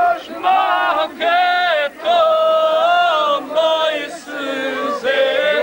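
A group of voices singing a chant-like song in long held notes, phrase after phrase with short breaks between them.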